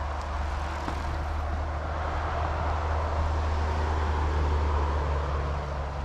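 A car driving past on the road, its tyre and engine noise swelling to its loudest about four to five seconds in and then fading, over a steady low rumble.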